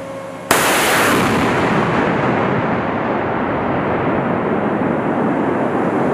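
M270 Multiple Launch Rocket System firing a rocket: a sudden blast about half a second in, then a long, loud rushing noise from the rocket motor that fades only slowly.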